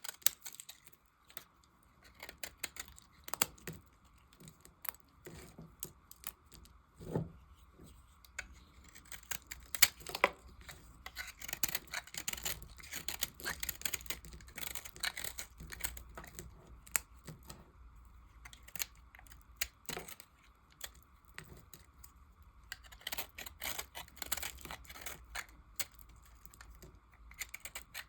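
Knife cutting leftover bits of dry soap: an uneven run of crisp, crackling cuts and scrapes with sharp clicks. There are quieter gaps in between.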